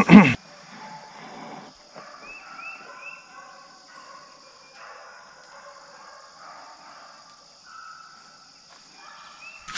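Steady high-pitched drone of crickets and other insects in the woods, with scattered short chirping calls over it. A loud thump at the very start and another short burst near the end.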